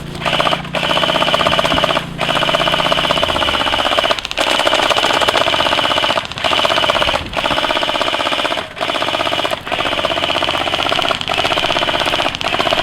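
Airsoft guns firing on full auto in long, rapid rattling bursts, broken by short pauses every second or two. A low steady hum runs under the first few seconds.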